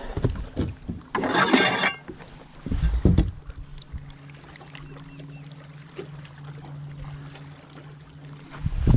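Knocks and a short hissing burst as a caught bass is handled on the deck of a bass boat, then a small electric motor on the boat humming steadily from about three seconds in.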